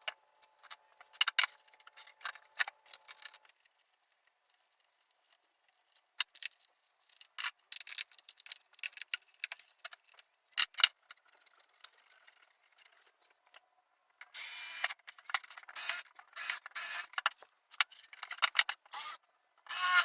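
Tools and metal parts being handled during assembly: scattered clicks and knocks, then from about 14 seconds in a run of short rasping bursts, typical of a ratchet or hand tool being worked.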